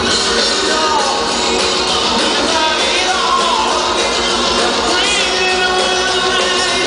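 Power metal band playing live, with a male lead singer's wavering, sliding vocal line over drums and electric guitar, heard loud from the audience.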